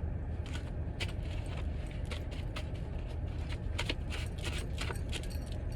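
Tarot cards being handled and shuffled: a run of soft, irregular clicks and flicks over a steady low hum.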